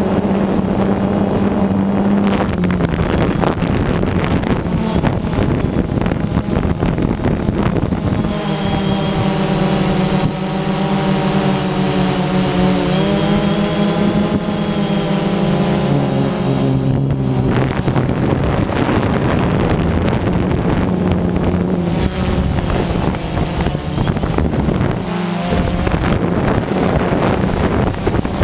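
Quadcopter drone's electric motors and propellers buzzing steadily, heard up close from the drone itself. The pitch steps and glides several times as it manoeuvres, with wind rushing over the microphone.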